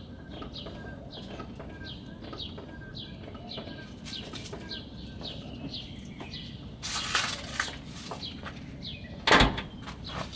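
A small bird chirping over and over, a quick even string of short high falling chirps, a little more than two a second. A short noisy rustle comes about two-thirds of the way in, and a sharp thump, the loudest sound, comes near the end.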